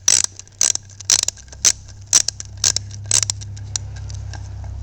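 Sharp metallic clicks of a hand tool tightening the clamp bolt on a battery-cable connector, about two a second, over a steady low hum.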